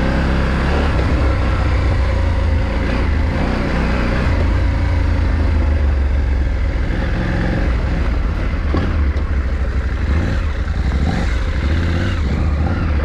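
KTM 790 Adventure R motorcycle running steadily as it is ridden over a rough, rocky dirt road, with a continuous low rumble.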